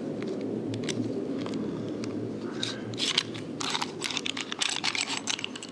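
Hands adjusting a hinge jig: a scatter of light clicks and knocks with a few short scraping rustles, mostly in the second half, over a steady low hum.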